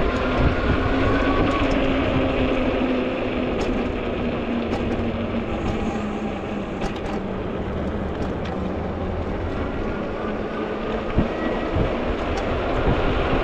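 Riding noise from a moving fat-tire electric bike: a continuous rush of wind over the microphone and tyre rumble on the road, with a steady hum through the first half or so and a few light clicks.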